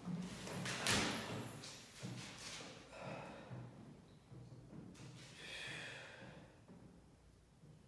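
Quiet movement sounds of a man doing a dumbbell pullover lying across a plastic cooler: a thump about a second in, shuffling, and his breathing.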